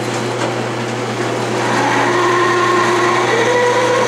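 Metal lathe running with a large twist drill boring into a spinning aluminium hub: a steady motor hum with the hiss of the cut, and a thin whine from the drill cutting that sets in after about a second and a half.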